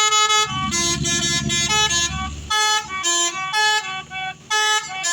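Bus telolet horn, a multi-tone musical air horn, playing a quick melody of short notes at changing pitches. A bus engine's low rumble runs under the first couple of seconds.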